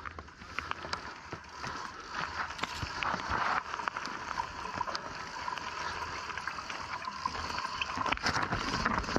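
Mountain bike descending a steep loose dirt and rock chute: knobby tyres rolling and skidding over gravel, with the bike rattling and many sharp clicks and knocks from stones and the frame, getting louder as speed builds.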